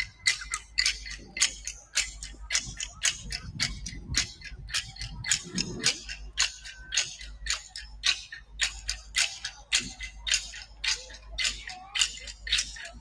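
A rattle or shaker played in a steady beat, about three shakes a second, with each stroke a short bright rattle.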